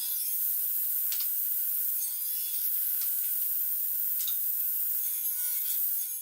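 Power tool working wood for handles: a steady motor tone under a high hiss of cutting, the cutting noise swelling twice.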